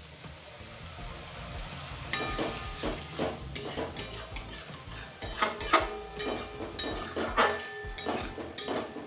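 Metal spatula scraping and knocking against a kadai while a spice paste (masala) is stirred, over a soft sizzle of the masala frying in oil with a little water added. The strokes start about two seconds in and come irregularly, one or two a second.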